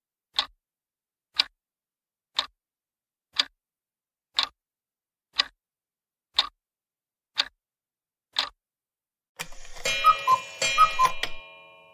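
Countdown clock sound effect ticking once a second, nine ticks, then a ringing chime with a falling two-note figure played twice as the correct answer is revealed, fading out near the end.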